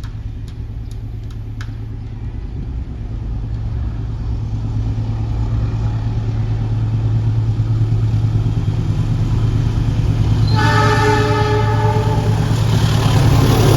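Approaching train led by a CC 206 diesel-electric locomotive: a steady low engine drone grows louder. About ten seconds in, the locomotive's multi-tone horn sounds for about three seconds. Near the end, the rushing noise of the train passing close by takes over.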